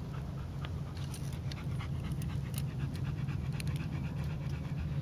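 Greater Swiss Mountain Dog panting steadily, with a few faint clicks as the cart's traces are snapped onto its harness.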